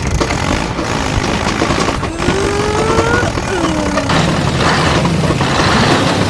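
Mini tractor running over a steady, noisy rumble, with a whine that rises in pitch about two seconds in and then falls away.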